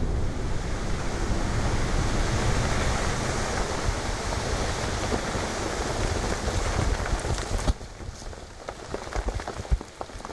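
Ice, water and snow thrown up by dynamite blasts under lake ice raining back down: a steady rushing hiss like heavy rain. It drops away abruptly about three-quarters of the way through, leaving scattered taps of pieces landing.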